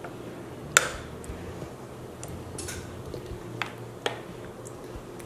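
A metal spoon clinking and scraping against a ceramic casserole dish and a salsa container while salsa is spooned out and spread. There are a few sharp clinks, the loudest about a second in, and a short scrape midway.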